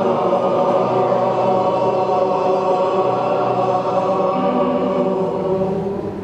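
A group of voices holding long open vowel sounds together on several pitches at once, a choir-like drone in a group vocal warm-up, dying away near the end.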